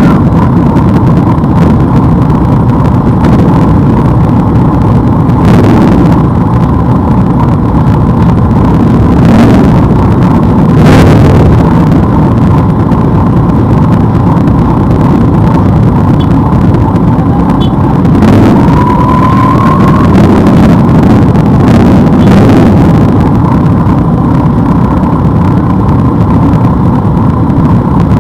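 A large group of motorcycle engines idling close by, a steady dense low running sound, with a few brief throttle blips.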